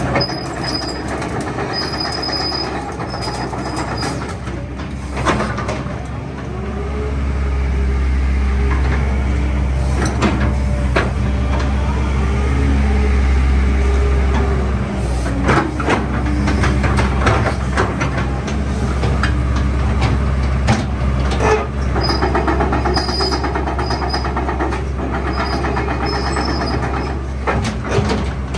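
Kobelco SK200-8 hydraulic excavator, with its four-cylinder turbo diesel engine running, travelling on its steel tracks, with repeated clanks and knocks from the track links and undercarriage. The engine note rises about six seconds in and stays higher through the middle, as the machine works under load.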